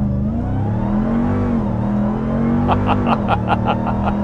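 Ram 1500 TRX's supercharged V8 heard from inside the cab while the truck drives on, a steady engine note that rises and falls gently in pitch. A person laughs in quick bursts about three seconds in.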